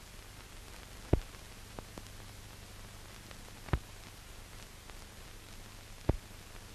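Hiss and faint low hum of a 1935 optical film soundtrack, broken by three sharp pops about two and a half seconds apart.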